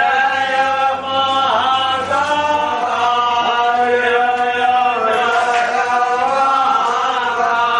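Devotional Hindu chanting: a slow, steady mantra-like chant with long held notes gliding from one pitch to the next.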